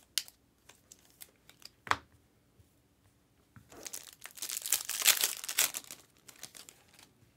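Foil wrapper of a Panini Select trading-card pack being torn open and crinkled, about three seconds of dense crackling starting around halfway through. A few light clicks of cards and packs being handled come before it.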